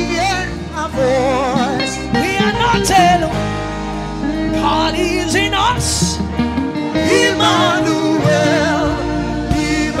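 Live gospel worship music: singing voices with a wavering vibrato over sustained instrumental accompaniment.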